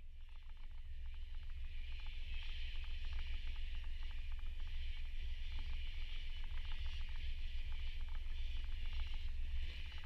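A 30 hp outboard motor runs steadily at trolling speed, pushing a small aluminium boat, with a steady low hum and a hissing wash. Over it comes a fast, fine clicking. The sound fades up over the first two seconds or so.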